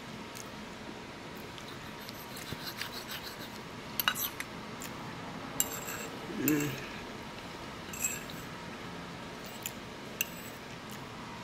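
Metal fork clicking and scraping against a ceramic plate in scattered light taps while pancake is cut and picked up. A short hummed voice sound comes about six and a half seconds in.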